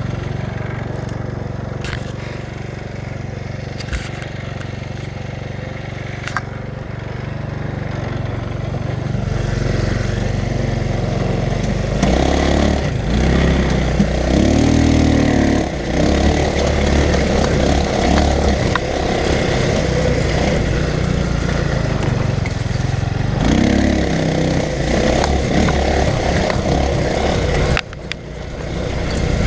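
Off-road go-kart's small engine running, getting louder about twelve seconds in and revving up and down from there, with a brief drop in level near the end.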